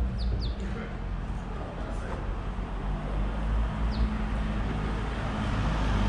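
Street traffic: a steady low engine and road rumble from vehicles. A few short, high bird chirps come about half a second in and again about four seconds in.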